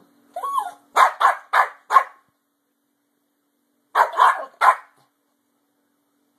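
Small Yorkshire terrier barking: a brief whine, then four quick barks in a row, and after a pause of about two seconds, three more barks.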